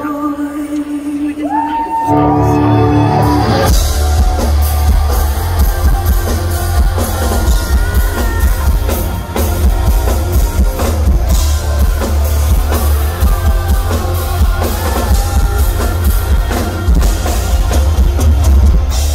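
Live rock band with a female lead singer: a sparse opening of voice and keyboard, with a sung note sliding upward about two seconds in, then the full band with drum kit and bass comes in heavily about four seconds in and plays on under the vocals.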